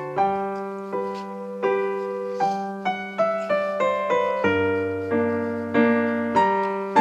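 Background piano music: notes struck about two a second, each fading away, over held lower notes.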